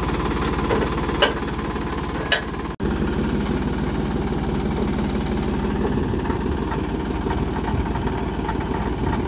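Massey Ferguson tractor's diesel engine idling with a steady, even clatter, with a few sharp clicks in the first three seconds.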